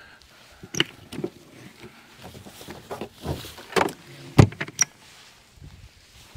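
Clicks and knocks of a truck camper's exterior compartment hatch being unlatched, opened and shut while an extension cord is pulled out, with a heavier thump about four and a half seconds in.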